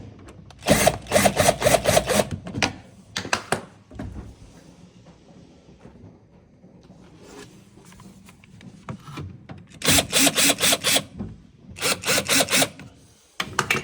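Hand tool working the door spring tension adjuster of a Miele dishwasher: several bursts of quick rasping strokes, about five a second, with quieter pauses between.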